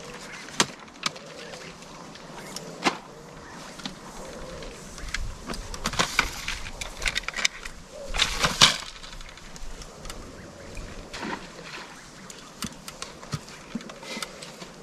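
Fishing tackle being handled on a seat box: scattered clicks and knocks, with a busier stretch of clattering and rustling about five to nine seconds in, loudest just before nine seconds.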